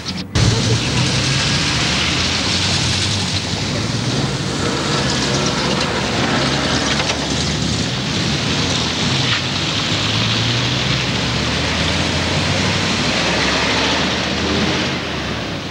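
Road traffic: cars and a van driving past on a wet cobbled street, a steady mix of engine and tyre noise.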